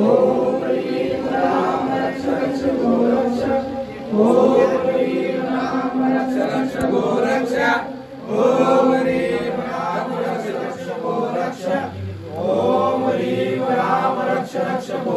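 A group of men chanting a Hindu devotional chant together in unison. The chant runs in long phrases with short breaks every few seconds.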